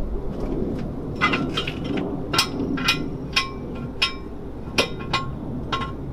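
Daytona hydraulic floor jack being pumped to lift a car: a string of sharp metallic clinks, roughly two a second, over a low steady background rumble.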